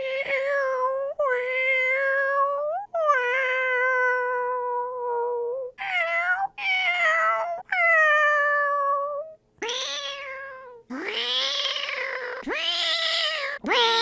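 A person imitating cat meows with their mouth: a run of about ten meows, mostly short with a rise and fall in pitch, and one long drawn-out meow held for nearly three seconds starting about three seconds in.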